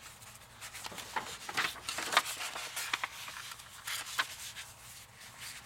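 Paper rustling and crackling as a Little Golden Book storybook page is handled and folded by hand, with a few sharper crackles about two and four seconds in.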